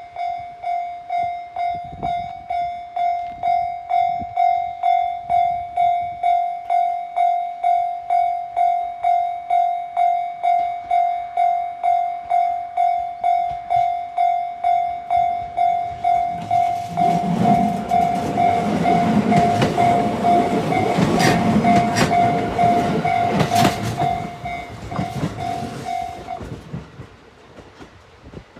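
Japanese level-crossing warning bell ringing steadily, about two strikes a second. About sixteen seconds in, a Shinano Railway electric train runs over the crossing with a loud rumble and wheel clacks over the rail joints. The bell stops near the end as the train clears.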